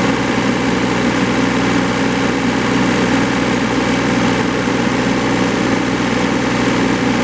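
Yanmar 3TNV84 three-cylinder diesel engine of a John Deere 3225C mower running steadily at a constant speed.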